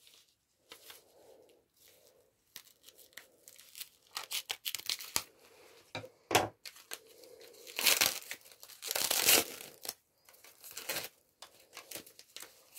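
Clear plastic wrapping and a foam sheet being cut with scissors and torn open, crinkling and rustling in uneven bursts, loudest about eight to nine and a half seconds in.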